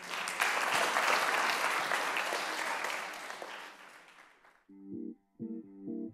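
Studio audience applauding, dying away after about four seconds, then a song's guitar introduction starts: plucked chords repeating in an even rhythm, roughly one every three-quarters of a second.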